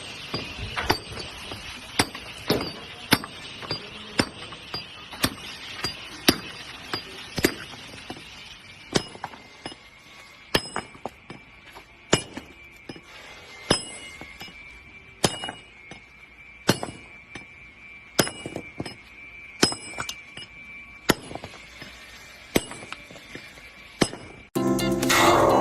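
Repeated sharp metallic knocks, about one to two a second, each with a short ringing after it.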